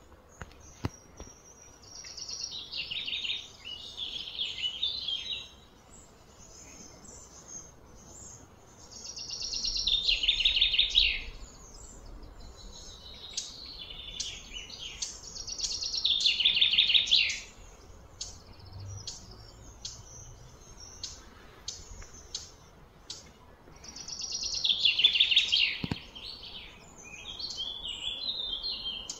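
A bird singing: a high, trilled phrase of about two seconds that grows louder and then stops abruptly, repeated several times with pauses of a few seconds between.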